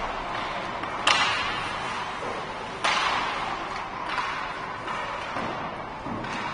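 Youth ice hockey play echoing in an indoor rink: skates scraping on the ice under a steady hiss, with two sharp knocks about a second and nearly three seconds in that ring on in the hall.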